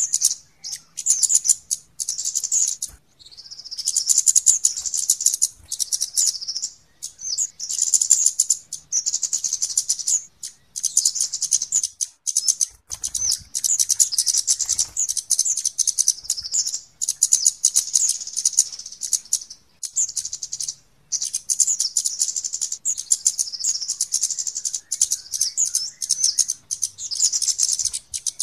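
Flowerpeckers chirping: rapid, high-pitched calls in busy runs a few seconds long with short breaks. This is a bird-lure (pikat) recording played to call in kemade and other flowerpeckers.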